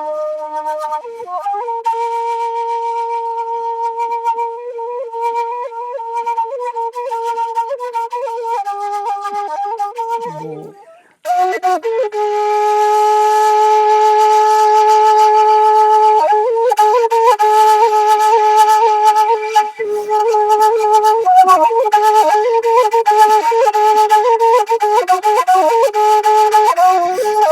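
Shimshal, the Kurdish end-blown flute, playing a slow melody of long held notes decorated with quick ornamental turns. The playing breaks off briefly about eleven seconds in, then resumes louder.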